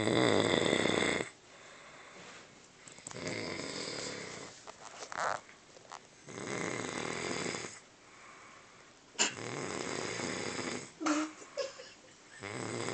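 A woman snoring in deep sleep: loud, rattling snores about every three seconds, five in all, with quieter breathing between. The filmer puts it down to her being drunk.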